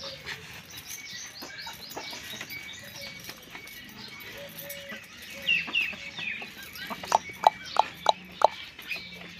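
Hen clucking: a quick run of about five short clucks near the end, over scattered small bird chirps.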